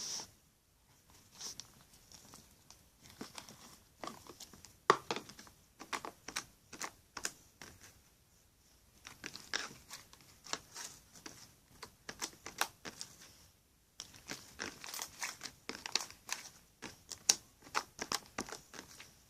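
Slime being squished and kneaded by hand, giving clusters of sticky popping clicks and crackles with a few short pauses.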